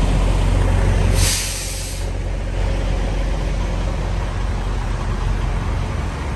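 Semi truck's diesel engine idling steadily, with a short burst of air hissing from the air brakes about a second in.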